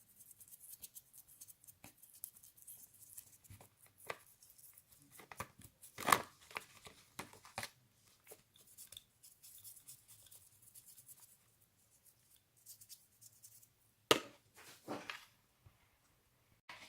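Small, irregular scraping and clicking of hand tools working over a die-cast metal model while its paint is being stripped, with a few sharper knocks about six seconds in and again near the end.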